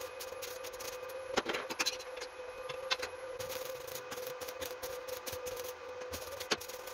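Stick (arc) welding on a steel tube frame: an irregular crackle with a few sharper pops, over a steady hum.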